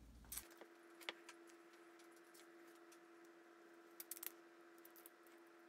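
Near silence with a faint steady hum, broken by a few faint clicks and small metallic rattles as small carburetor screws and parts are picked up from a cloth-covered table, the busiest cluster about four seconds in.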